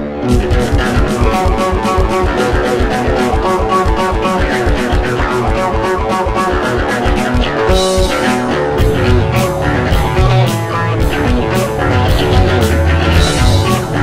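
Rock music with guitar kicks in suddenly over a fast, even beat. About eight seconds in, a crash-like wash comes in and the bass grows heavier.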